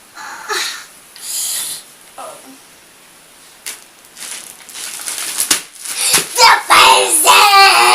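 A child's voice, loud and drawn-out, starting about six seconds in, after a few faint rustles and clicks.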